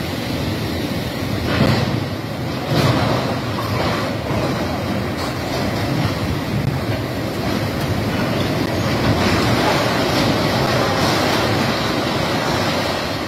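Floodwater rushing into a tunnel portal: a loud, steady rumbling rush, with a few sharp knocks in the first five seconds.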